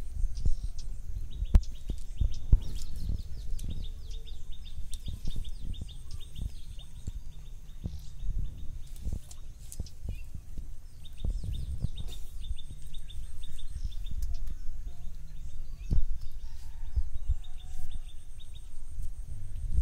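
Outdoor sound by a pond: wind rumbling on the microphone, with scattered soft knocks and rustles as fish are picked out of a cast net by hand. Over it, a high, rapid chirping trill runs for several seconds at a time, twice.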